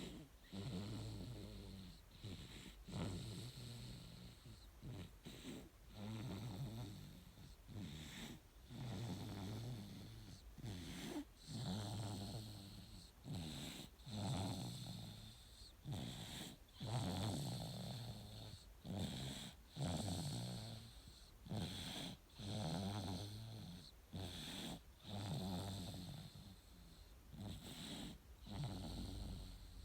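A nine-month-old baby snoring in deep sleep, a low snore on each breath in a steady rhythm of about one every one to two seconds.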